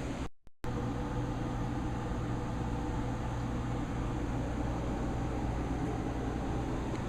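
Steady low machinery hum aboard a motor yacht, an even drone holding several fixed low tones. It cuts out for a moment just after the start.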